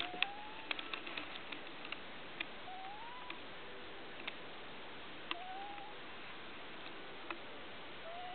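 American Shorthair cat snoring in its sleep with a whistle-like note: a short rising whistle about every two and a half seconds, each at a slightly different pitch. A few faint sharp clicks fall in between.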